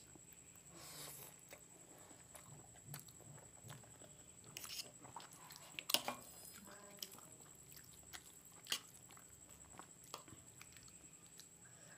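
Close-miked chewing and slurping of spicy Maggi noodles, with a few sharp clicks of a metal fork against the plate, the loudest about halfway through.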